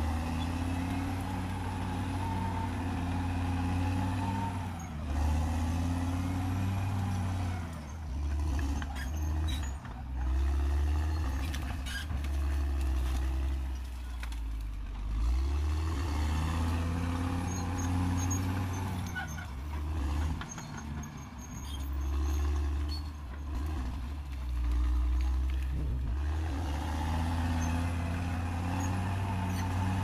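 Caterpillar D6R XL bulldozer's diesel engine working, its pitch rising and falling again and again as the load changes, with scattered light clicks and cracks.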